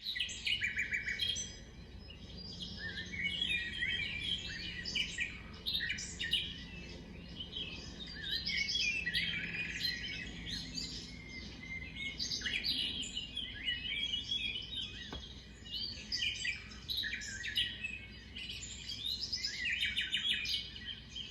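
A songbird singing long, warbling, twittering phrases one after another with short pauses between them, over a faint low hum.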